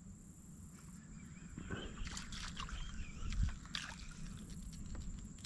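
Faint clicking of a fishing reel and light water trickle as a fouled lure is reeled back to the kayak, over a steady high thin tone.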